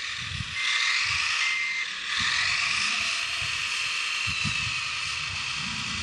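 Radio-controlled Liebherr LR 632 hydraulic track loader model's motors and hydraulic pump whining steadily as it digs into the dirt and lifts its bucket, with low knocks and two short beeps in the first couple of seconds.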